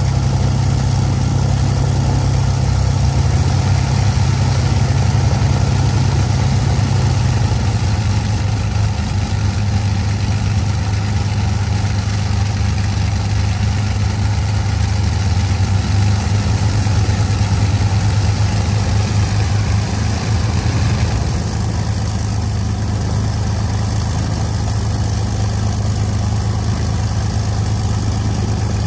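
de Havilland Mosquito's twin Rolls-Royce Merlin V12 engines running together at low power on a ground run, a steady, loud engine drone. The pitch drops slightly about a quarter of the way through, and the sound eases a little about two-thirds through.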